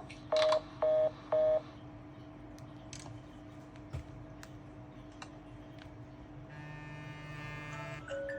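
Smartphone sounding three short electronic beeps in quick succession, then quiet, then near the end a steady buzzing tone lasting about a second and a half.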